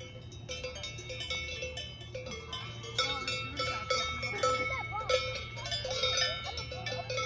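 Cowbells on several cows ringing and clanging irregularly, many bells of different pitches overlapping.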